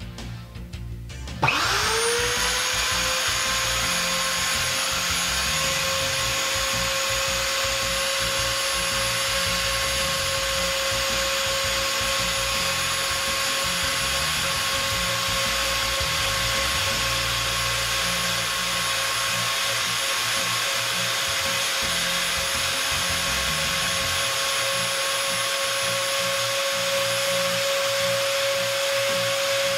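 The router motor of a Hoffmann MU3 dovetail routing machine switching on about a second and a half in, spinning up to speed within half a second, then running with a steady whine.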